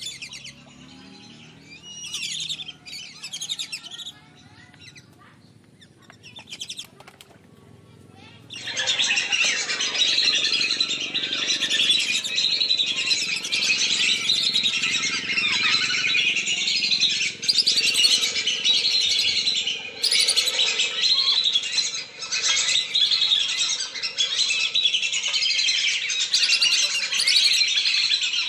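A flock of whistling ducks (belibis) calling, played as a lure call: a dense, high whistling twitter. The calls are scattered for the first eight seconds or so, then become a continuous chorus.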